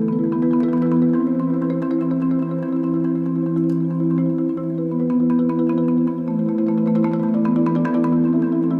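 Rosewood marimba played in sustained rolled chords, the low notes held while the harmony shifts every second or so, with quicker single mallet strikes ringing higher up.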